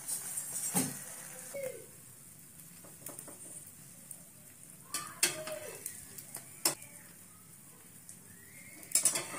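Egg-dipped bread frying in vegetable oil in a frying pan, sizzling steadily, with a slotted spatula knocking and scraping against the pan a few times, twice in quick succession near the end.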